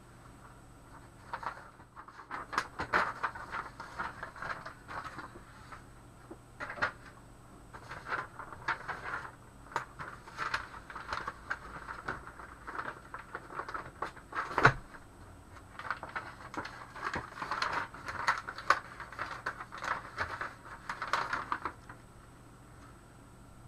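Scratchy pen strokes and small taps on paper in irregular bursts, with one sharp knock about fourteen and a half seconds in.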